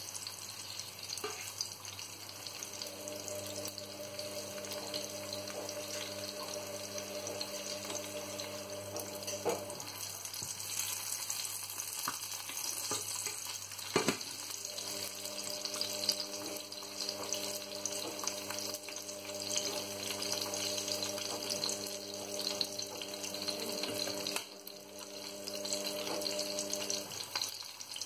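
Mackerel fillets frying in oil in a nonstick pan, a steady sizzle, with a few sharp knife knocks on a plastic chopping board as ginger is sliced. A steady low hum comes and goes, breaking off for a few seconds near the middle and stopping near the end.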